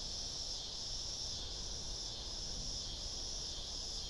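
Steady insect chorus, a continuous high-pitched buzzing drone that holds at an even level throughout.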